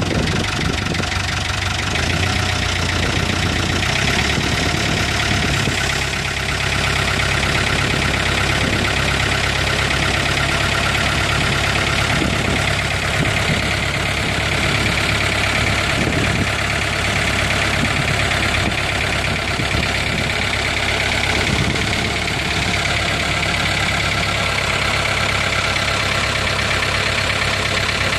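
Ford 5600 tractor's four-cylinder diesel engine idling steadily.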